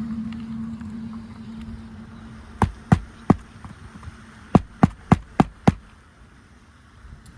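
Hammer driving roofing nails into a replacement asphalt shingle: three blows, a short pause, then five quicker blows. A low hum fades out during the first two seconds.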